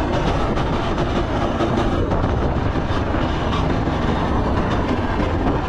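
Go-kart engine running steadily as the kart drives along the track, a continuous loud rumble with no break.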